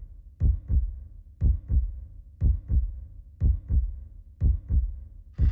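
Heartbeat sound effect: a deep double thump (lub-dub) repeating steadily about once a second.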